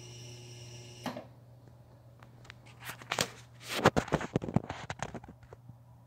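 Hampton Bay Carriage House II ceiling fan buzzing steadily, a low hum with high tones over it; about a second in, the high part of the buzz stops with a click, leaving the low hum. From about halfway, a run of irregular sharp clicks and crackles, the loudest sounds here.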